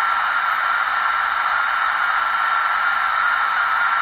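Amateur HF transceiver (Elecraft K3) on receive with no station coming through: a steady static hiss, cut off sharply above and below as through a voice filter, with a faint steady whistle running through it.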